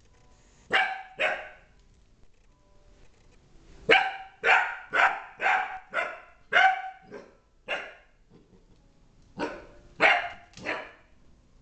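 Young puppy barking at a stuffed toy in short, sharp, high-pitched yaps. Two come about a second in, then a quick run of about eight, then three more near the end.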